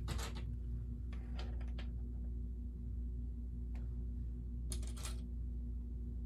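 Hard plastic LEGO pieces clicking and clattering as they are handled and pressed together, in a few short bursts, over a steady low hum.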